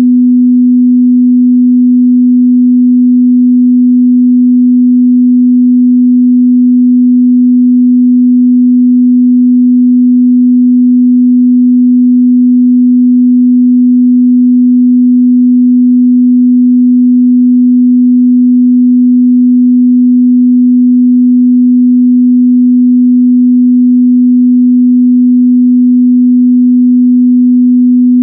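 A steady, loud 248 Hz pure sine tone, a mid-bass test signal for checking speaker and headphone response, held at one pitch and level.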